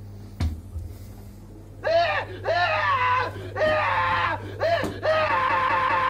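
A knock about half a second in, then a run of about five high-pitched squeals, each rising and falling in pitch at its start, the last one held steady for about a second.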